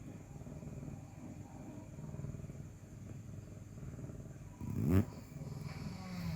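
Cat purring steadily in a low pulsing rumble, with a brief loud sound falling sharply in pitch about five seconds in and a short pitched call near the end.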